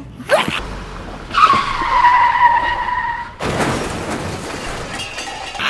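Tyres squealing in a car skid for about two seconds, a high steady squeal. It cuts off and a sudden loud rushing noise takes over, as the car runs off the road.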